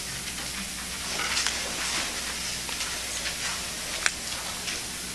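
Pause between movements of a choral and orchestral performance: steady hiss with scattered rustles and small knocks from performers shifting and handling their scores, and one sharp click about four seconds in.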